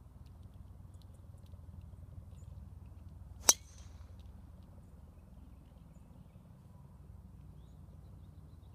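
A golf club striking a golf ball in a full swing: one sharp metallic crack about three and a half seconds in, with a brief ring after it.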